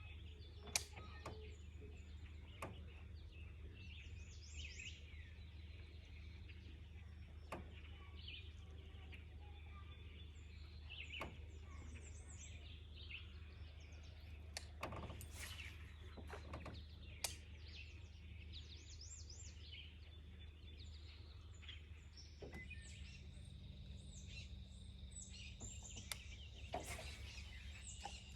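Faint birdsong and chirping from several birds around a lake, over a steady low hum, with a few sharp clicks.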